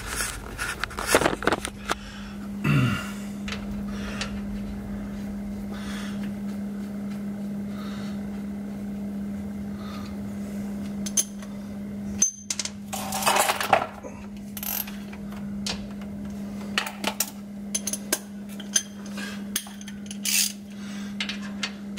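Metal tools clinking, tapping and scraping against a differential cover as its fill plug is refitted after an oil fill, with a longer scrape about 13 seconds in, over a steady low hum.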